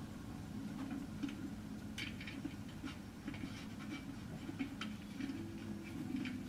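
Faint, scattered small clicks and light scratching of a paintbrush working paint, over a low steady hum.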